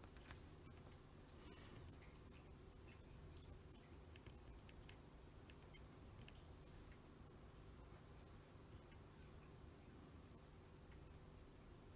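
Faint scratching of a Conway Stewart 36 fountain pen nib moving over paper in short, quick strokes as a name is written in cursive, over a low steady hum.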